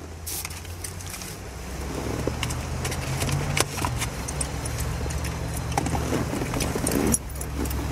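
Steady low hum of a Chevrolet car's engine heard inside the cabin, growing louder over the first two seconds, with scattered clicks and knocks of a foam cup and an aluminium soda can being handled and set in the console cupholder.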